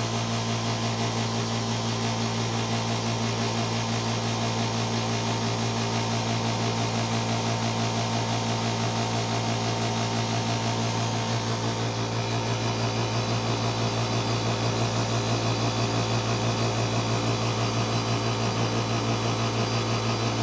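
VEVOR oil-free air compressor running steadily as it pumps up its tank, past 30 psi on the way up: a steady, even hum, rather quiet for an air compressor, with a slight change in its tone about halfway through.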